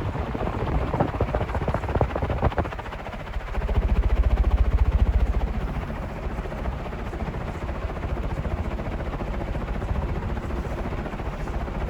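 1978 SMC 60F industrial ceiling fan running on high speed, its heavily pitched blades chopping the air in a fast, even pulsing whoosh. The air buffets the microphone, swelling loudest about four seconds in.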